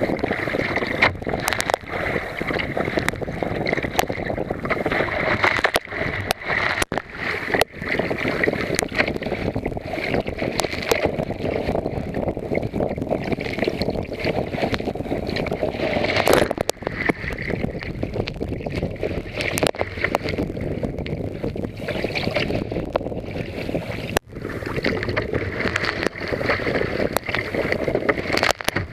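Water rushing, splashing and slapping over the deck of a sea kayak in rough seas, mixed with wind buffeting the microphone, with frequent sharp knocks and crackles as spray and waves hit.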